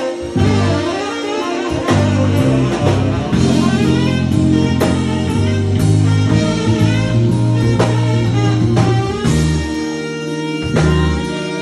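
Live band music with guitar and drums, playing a steady bluesy groove.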